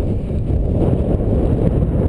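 Wind buffeting the microphone, a steady low rumble that covers any other sound.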